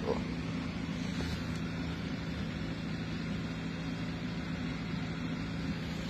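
Steady low mechanical hum, like an engine running nearby, under outdoor background noise.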